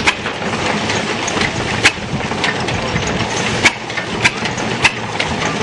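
A 1912 stationary gas engine with twin flywheels belt-driving a wooden threshing machine. The engine fires with sharp pops at uneven gaps, from about half a second to two seconds apart, over the thresher's steady clatter.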